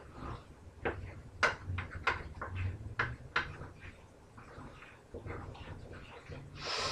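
Kitchen clatter while cooking at the stove: about six sharp knocks and clinks of cookware and utensils in the first three and a half seconds, lighter handling sounds after, and a short noisy burst near the end.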